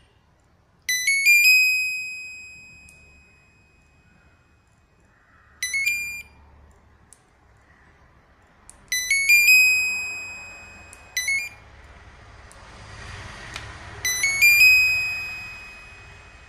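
LG air-conditioner control board's buzzer sounding its power-on chime as the power button is pressed: five electronic chimes in all. Three are a quick run of rising notes ending in a held note that fades, about a second in, near nine seconds and near fourteen seconds, and two are short beeps around six and eleven seconds. The beeps show that the repaired board's power supply is up and the board is responding.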